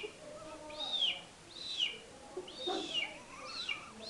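A man imitating a baby chick's peeping with his voice: a steady run of high, arched 'pío' peeps, about two a second, each rising then falling in pitch.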